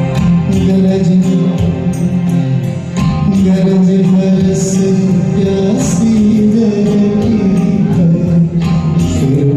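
Instrumental music of a karaoke backing track, with sustained tones over a regular percussion beat.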